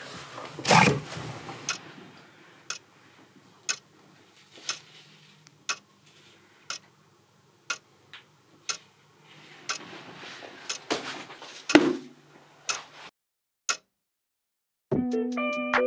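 A clock ticking about once a second, with louder rustling swishes about a second in and again around eleven to twelve seconds in. The ticking stops about fourteen seconds in.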